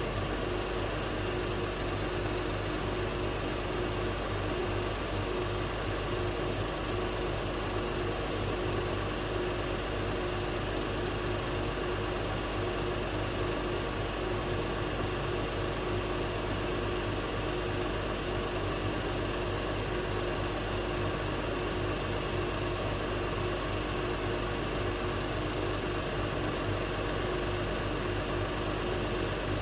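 2024 Honda Pilot TrailSport's V6 engine idling steadily, a constant hum. The engine is stuck running after a remote start and cannot be shut off, an electrical fault the dealer blames on water in the wiring harness.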